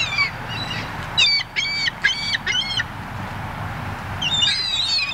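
Gulls calling while being fed: a few calls at the start, four short calls in quick succession a second or so in, and a longer run of overlapping calls near the end.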